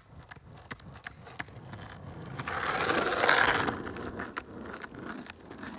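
Wheels rolling on pavement, a rough rolling noise with scattered sharp clicks that swells to its loudest about three seconds in and then eases off.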